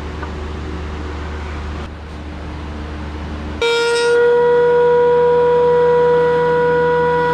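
A steady low machine hum and noise, then about three and a half seconds in a DeWalt two-speed benchtop thickness planer starts abruptly and is heard running: a loud, steady, high whine with several overtones.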